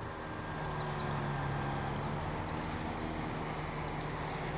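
Electric motor and propeller of an E-flite Piper Cherokee 1.3 m RC plane running in flight, a steady hum that grows a little louder over the first second and then holds.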